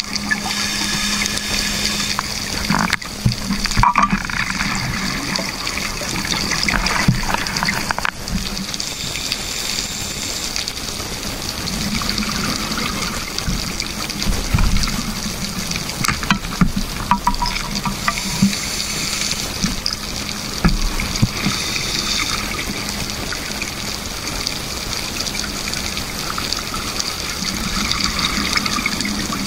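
Underwater sound picked up through a camera housing: a steady wash of water noise, with bursts of bubbling from scuba divers' exhaled air and scattered small clicks.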